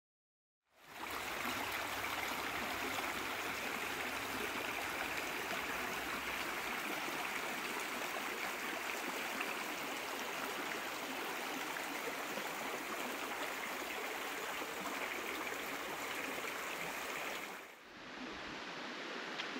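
Shallow river water running over and between boulders, a steady rushing babble. It starts about a second in and dips briefly near the end before carrying on.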